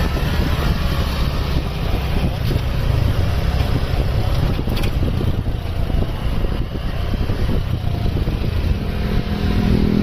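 A large tour bus's engine rumbling steadily as the bus rolls slowly toward the microphone.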